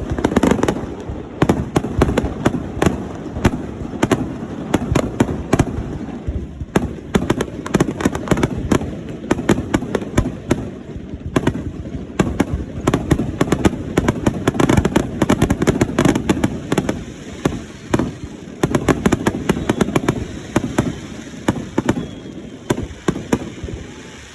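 Fireworks going off in a dense, continuous barrage of sharp bangs and crackling, starting abruptly and thinning out near the end.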